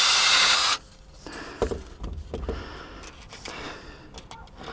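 Cordless drill running at speed, boring a clearance hole through the fibreglass deck, then cutting off suddenly under a second in. After it come only a few faint clicks and low knocks.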